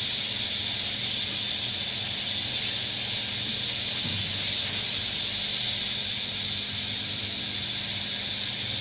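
Microwave oven running with a steady hum and fan hiss, drying green tea leaves.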